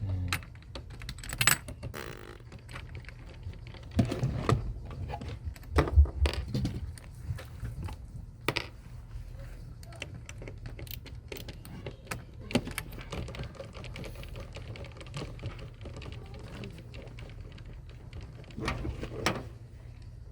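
Irregular small clicks, taps and knocks of hard plastic and metal computer parts being handled and fitted, likely the CPU heat sink going on, with a few louder knocks about four and six seconds in and again near the end.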